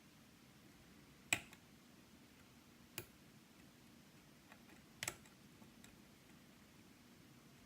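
Lock-picking tools clicking inside a Yale Superior lock: a few sharp isolated clicks a couple of seconds apart, one of them doubled, over a near-silent background.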